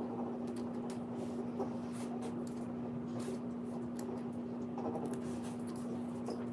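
Scissors snipping goldenrod flower stems, with scattered small clicks and rustles of the stalks being handled. Under it runs a steady low hum and the snorting breathing of a French bulldog.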